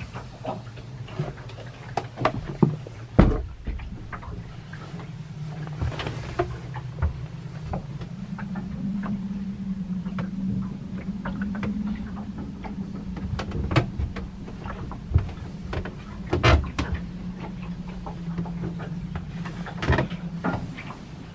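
Scattered knocks, thumps and clicks of footsteps and handling inside a boat's wooden cabin, over a steady low hum that grows a little louder in the middle and eases near the end.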